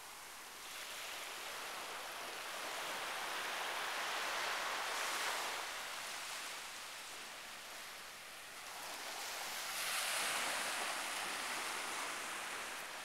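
Small surf washing onto a sandy beach, a steady hiss that swells and fades twice as waves come in.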